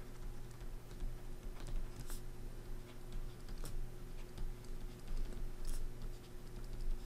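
Stylus tapping and scratching on a drawing tablet while handwriting, a string of faint irregular clicks and light strokes over a steady low hum.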